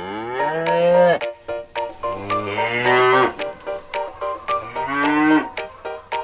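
Cows mooing: three long moos one after another, each a drawn-out call that drops in pitch as it ends.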